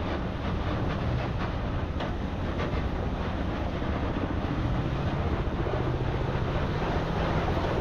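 Off-road vehicle engine running steadily while driving a rough desert trail, with wind on the microphone and a few knocks from the ride about two seconds in.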